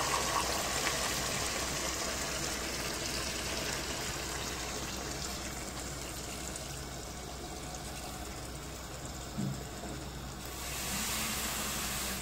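Water being poured from a pan into a pot of tomato and onion sauce: a steady splashing stream that gradually weakens, with a brief knock about nine seconds in.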